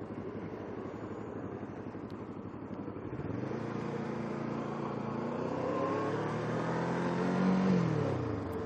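Kawasaki Ninja 650R's parallel-twin engine running at low revs, then from about three seconds in pulling steadily higher in pitch and louder for about four seconds as the bike accelerates. Near the end the revs drop quickly as the throttle is rolled off.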